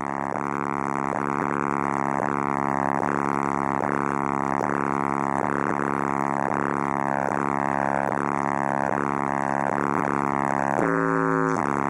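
Bass-heavy music played very loud through two DC Audio XL 18-inch subwoofers in a walled car, heard from inside the cabin: a deep droning bass line with a steady beat about twice a second, and the bass notes shift briefly near the end.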